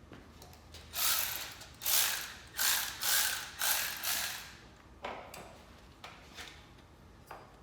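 A hand ratchet wrench being worked in a quick run of about five strokes, each a burst of ratcheting clicks, then a few light clicks near the end.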